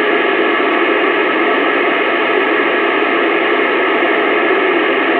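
Steady hiss of static from a CB radio's speaker between transmissions, with a few faint steady tones in the noise.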